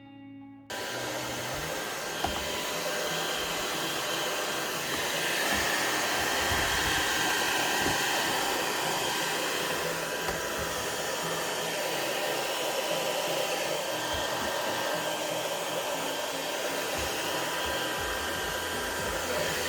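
Heat gun blowing steadily over wet epoxy resin, switched in suddenly about a second in.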